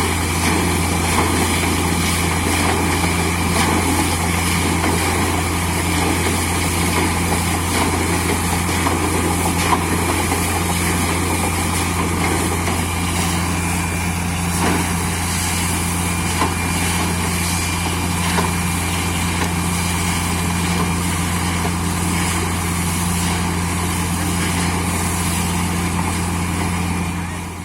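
Borewell drilling rig's engine and air compressor running steadily with a deep, even hum, fading out at the very end.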